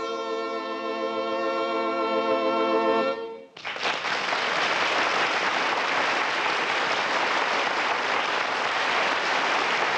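Orchestral music ending the radio drama on a long held chord that cuts off about three and a half seconds in. A steady, even rush of noise follows, with no pitch in it.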